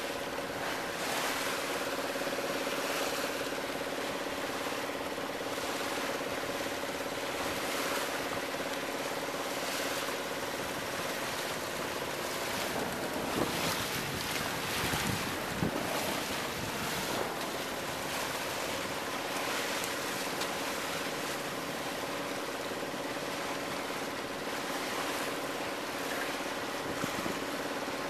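Water rushing and splashing along a sailboat's hull, with wind buffeting the microphone and a faint steady hum underneath. The water and wind are loudest about halfway through.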